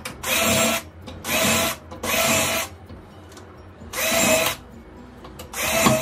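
Cordless drill with a pilot bit running in five short bursts of about half a second each, drilling pilot holes for the screws of a night latch back plate in a wooden door.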